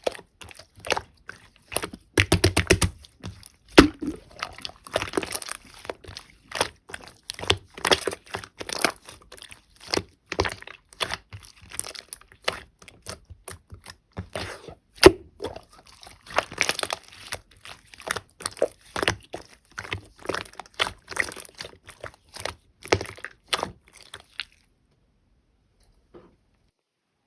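Slime being squeezed and pressed by hand, making irregular crackling clicks and small pops; it cuts off suddenly near the end.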